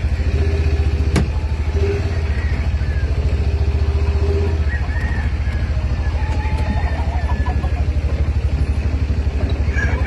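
A steady, low engine rumble that pulses evenly.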